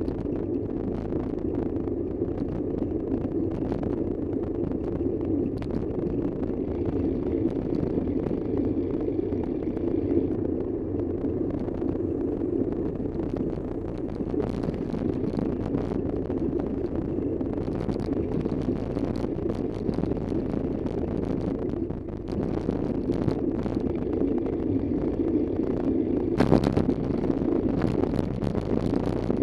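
A vehicle driving on the road: a steady rumble of engine and road noise. A brief louder rush comes about three-quarters of the way through.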